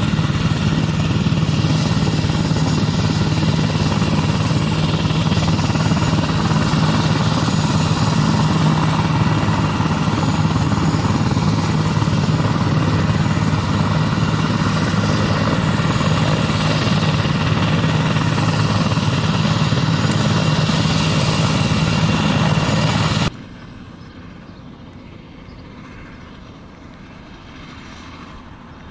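Eurocopter EC145 (BK117 C-2) helicopter running on the ground with its rotors turning: its twin turboshaft engines and rotors make a steady, loud sound with a strong low hum. About 23 seconds in, the sound drops suddenly to a much fainter level.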